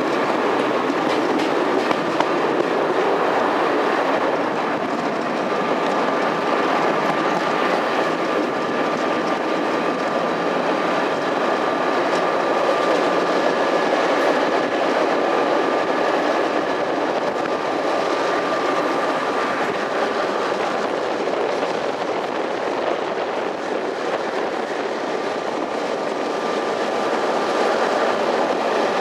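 Passenger train running steadily on the line, heard as a continuous rumble of wheels on rail with two faint steady whining tones in it.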